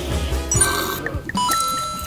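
Background music, with liquid pouring from a bottle into glasses near the end.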